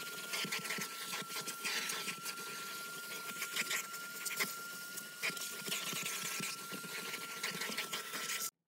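Vacuum cleaner running with a steady high whine as its hose nozzle is dragged over car floor carpet, giving a scratchy, irregular sucking and scraping. It cuts off suddenly just before the end.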